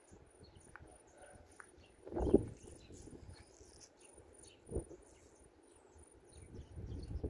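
An insect chirping steadily in short, high-pitched pulses, about three a second. Two brief low thuds come through, the louder about two seconds in and another just under five seconds in.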